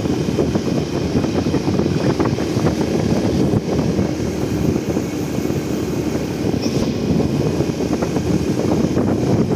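Wind noise on the microphone over a moving vehicle's engine running steadily, with a faint steady hum.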